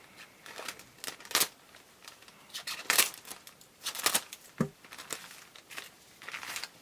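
Plastic courier-bag packaging being opened by hand, crinkling and tearing in irregular crackly bursts.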